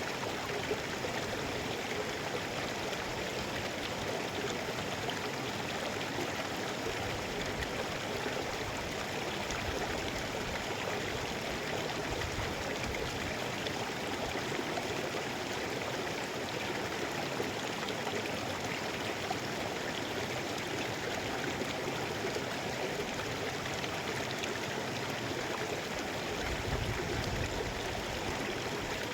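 Mountain river flowing over rocks, a steady rush of water.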